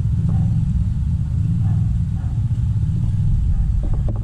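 A steady low rumble, with a few faint clicks near the end.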